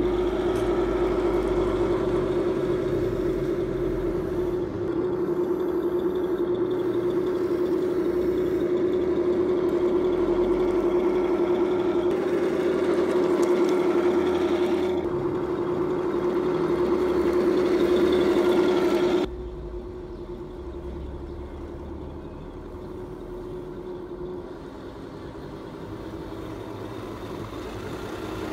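Heng Long 1/16 radio-control KV-1E tank running: a steady mechanical whine from its electric drive and gearbox mixed with the simulated engine sound of its sound unit. It drops sharply in level a little past halfway through and carries on more quietly.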